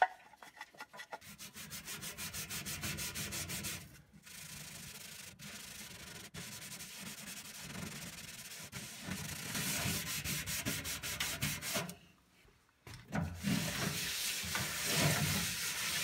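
Scouring powder shaken from a cardboard canister for about a second, then a sponge scrubbing Bar Keepers Friend cleanser over the painted steel floor of a microwave cavity to lift a rust ring, in quick back-and-forth strokes. The scrubbing stops briefly about twelve seconds in, then resumes louder.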